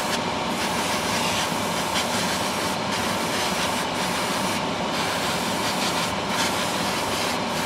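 Steady rushing air noise from a hobby spray booth's extractor fan, with the hiss of an airbrush spraying acrylic paint onto a small model part.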